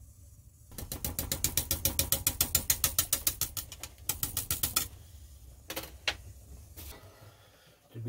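Gas stove's spark igniter clicking rapidly, about seven clicks a second for some four seconds, as a burner is lit, followed by a few single clicks.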